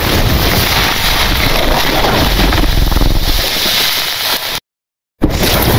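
Logo-animation sound effect: a loud, steady rushing noise with a low rumble. It cuts off abruptly for about half a second near the end, then starts again.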